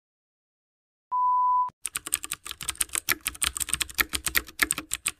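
A short steady beep, then a rapid run of computer-keyboard typing clicks, a typing sound effect laid under on-screen text.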